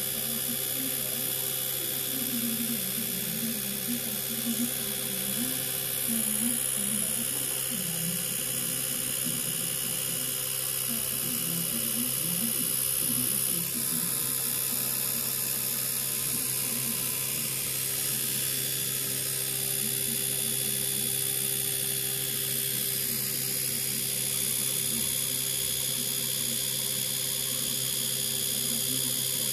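Oral-B Vitality oscillating-rotating electric toothbrush running continuously, a steady buzzing hum held close by.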